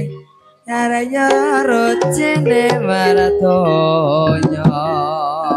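Javanese gamelan music accompanying an ebeg dance: a singer's wavering, ornamented melody with vibrato over sustained instrument tones, resuming after a brief pause about half a second in.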